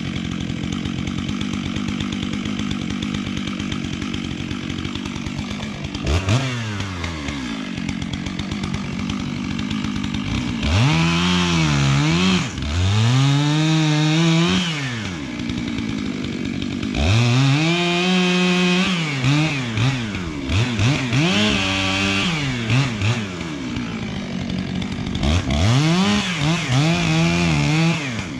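Two-stroke chainsaw idling, then revving in repeated bursts from about six seconds in, its engine speed rising and sagging as it cuts into the trunk of a dead tree during felling.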